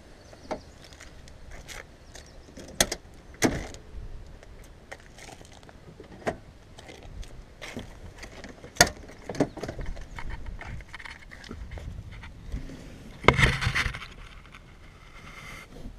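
Handling noise on a GoPro Hero with the open skeleton back as it is carried and set down in the back of a car: irregular sharp knocks, clicks and rustles, with the loudest cluster about 13 seconds in.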